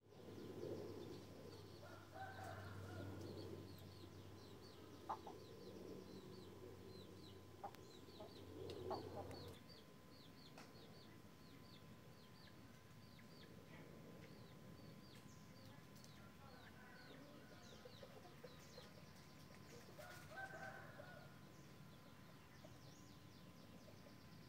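Faint yard ambience: a chicken calls about two seconds in and again near the end, over a steady run of small, quick bird chirps. A low rumble fades out about ten seconds in.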